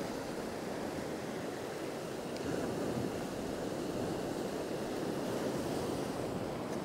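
Small sea swell washing on a rocky shore: a steady, even rush of surf.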